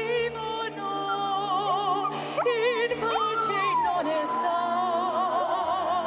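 A woman sings opera-style with a wide vibrato over an orchestral backing track, and a small dog howls along with her; about three seconds in, a long howl slides down in pitch.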